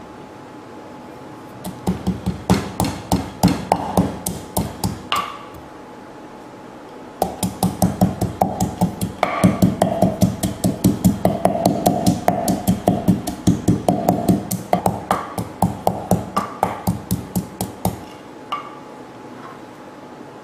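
Pestle pounding sliced lemongrass in a clay mortar, in two runs of steady strikes, about three or four a second, with a short pause between them. The lemongrass is being broken down to a fine, fibrous pulp for an herb paste.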